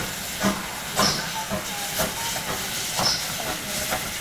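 GWR 4575-class prairie tank steam locomotive No. 5552 moving slowly under steam: a steady hiss of steam with a sharp beat about once a second.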